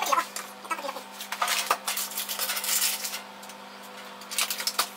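Wooden spoon scraping and stirring in a stainless steel pot of melting sugar for caramel, in three bursts, the longest in the middle. A steady low hum runs underneath.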